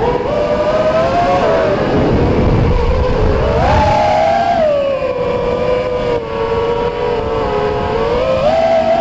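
FPV quadcopter's brushless motors and propellers whining, the pitch rising and falling together as the throttle changes, with wind rushing over the onboard microphone.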